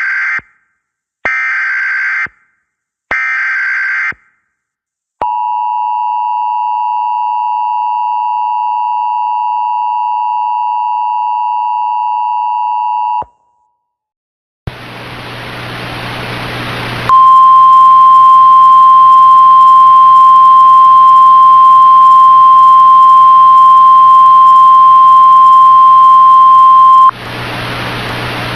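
Emergency Alert System tones: three short bursts of SAME header data, then the steady two-tone EAS attention signal for about eight seconds. After a brief silence, static hiss comes in and a single loud, steady NOAA Weather Radio 1050 Hz alert tone sounds over it for about ten seconds before it cuts off, leaving only the static.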